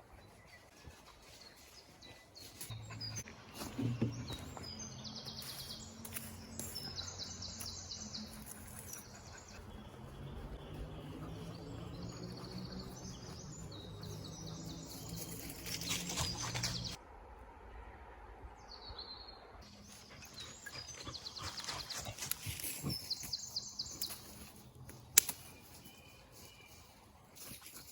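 Wild birds singing in woodland, with short repeated high trills on and off. Under them runs a low steady drone for much of the first half that cuts off suddenly about two-thirds of the way in, and there are scattered sharp clicks, one loud snap near the end.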